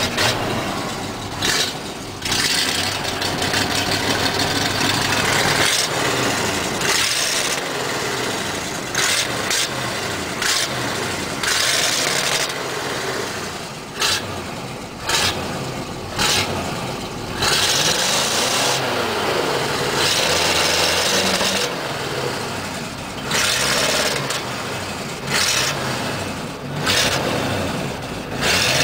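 GMC truck's 350 small-block V8 running through a patched, re-welded muffler that is only pushed onto the pipe, with no clamp or hangers. The engine is revved up and down several times.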